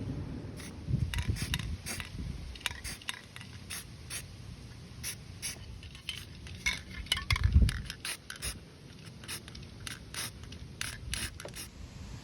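Irregular small clicks and clinks of tools and metal parts being handled during small-engine repair work, with two heavier dull thumps, about a second in and again about seven and a half seconds in.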